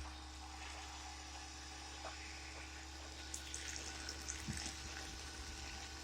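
Ryobi 1600 electric pressure washer running with a faint, steady hum, along with a light hiss of water, drawing soap through its siphon line.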